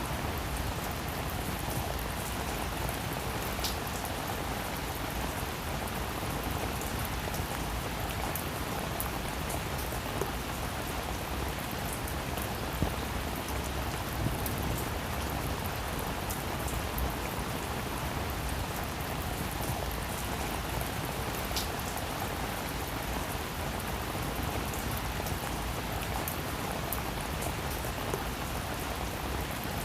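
Steady rain falling on a roof, a continuous even hiss with scattered sharper drops tapping now and then.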